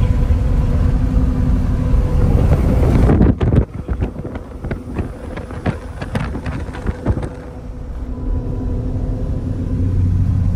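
Box truck running down the road, heard from inside the cab: a steady engine and road rumble with wind. About three seconds in the rumble drops away abruptly, and for about four seconds a scatter of light clicks and knocks stands out before the steady driving noise builds back.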